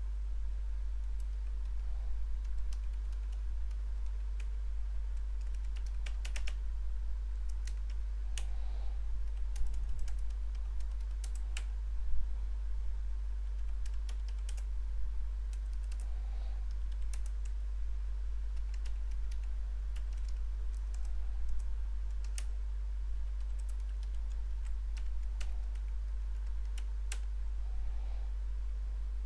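Typing on a computer keyboard: irregular runs of key clicks with short pauses, over a steady low hum.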